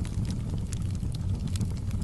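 Wood fire crackling in a fireplace, a few scattered sharp pops over a steady low rumble.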